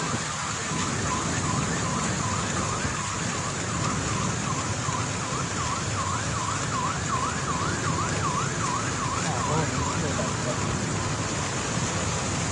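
A siren yelping in rapid up-and-down sweeps, about two or three a second. It grows louder through the middle and fades near the end. Under it runs the steady hiss of heavy rain and water on a flooded road.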